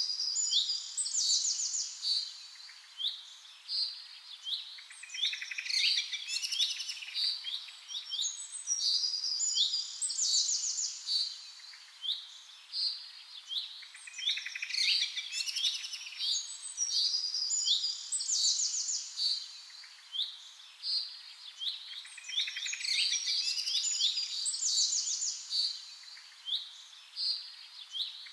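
Several small birds chirping and singing in a busy, overlapping chorus of quick high chirps and trills that carries on without a break.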